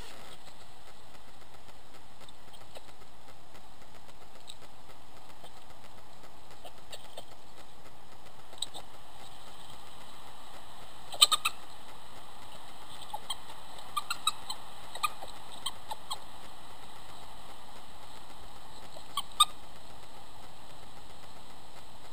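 Steady hiss of a Bushnell trail camera's microphone, with a scattering of short sharp clicks, the loudest a quick cluster about eleven seconds in and another near the end.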